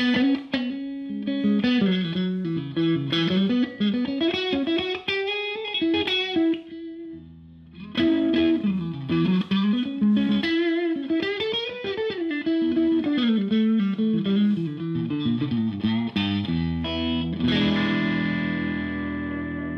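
Odlair SH 210 Stratocaster-style electric guitar played through a Marshall JTM combo amp. It plays quick single-note melodic runs that rise and fall, pauses briefly, plays more runs, then strikes a chord near the end that is left ringing.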